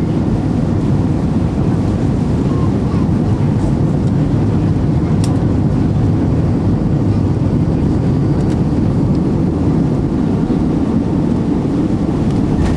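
Steady, loud cabin noise of an Airbus A320 on landing: the rush of its jet engines and airflow, heard from inside the passenger cabin.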